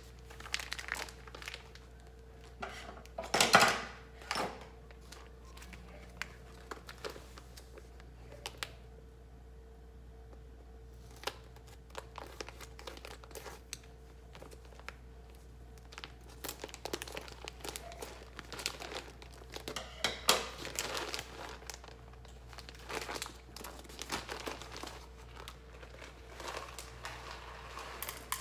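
Crinkling packaging of a bag of coffee beans being handled, in irregular rustles and small clicks, the loudest rustle about three and a half seconds in, over a faint steady hum.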